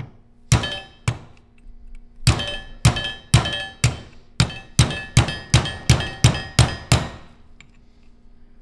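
A hammer striking metal about fifteen times, each blow with a short metallic ring. The blows start about two a second and speed up to about four a second past halfway.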